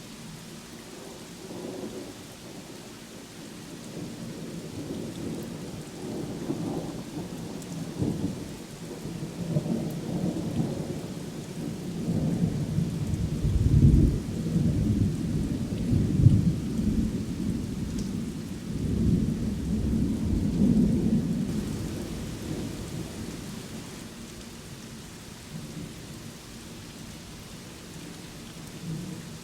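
Steady rainfall with a long rolling thunder rumble that builds over several seconds, comes loudest about halfway through, and fades away again near the end.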